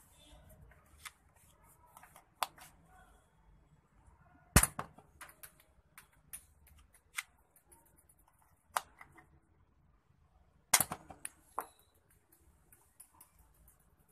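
Plastic spring-loaded toy gun firing twice: a sharp snap about four and a half seconds in and another near eleven seconds. Lighter plastic clicks and clatter come around each shot, from handling the gun and the projectile knocking over a small plastic target.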